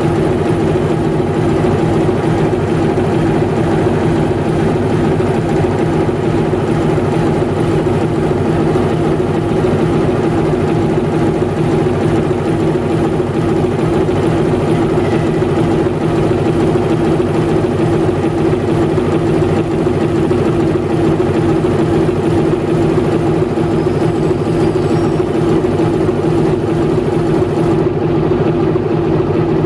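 TEM18DM shunting diesel locomotive idling at a standstill: a steady, even diesel drone with a strong constant hum.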